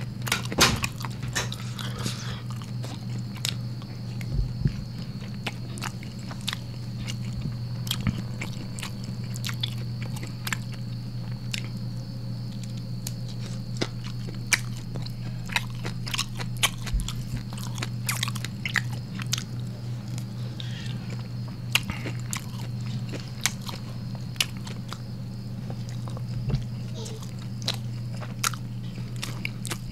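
Close-miked eating sounds: a person chewing mouthfuls of rice with beef rendang and squid, with many short wet smacks and clicks. A steady low hum runs underneath.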